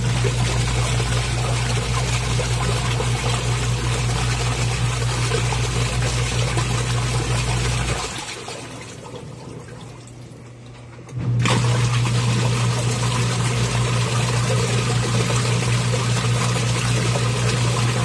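Twin-tub washing machine's wash motor running with a steady low hum while its agitator churns the water. It stops for about three seconds past the middle and starts again: on the normal wash cycle the agitator turns one way, pauses, then turns the other way.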